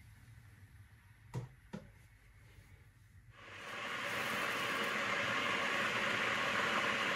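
Two light clicks, then about three seconds in a heating blender on its cooking program starts up: a steady hissing whir that swells over about a second and then holds.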